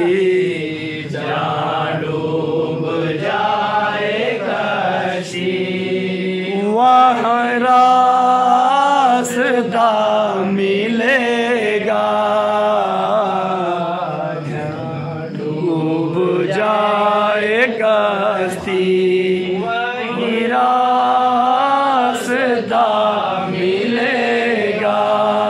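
A man singing a slow devotional Urdu song in long, wavering, drawn-out notes, phrase after phrase with short pauses between.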